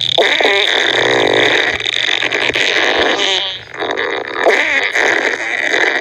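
Farting sound effect: a long run of loud farts, one blast running into the next, with a brief lull about three and a half seconds in.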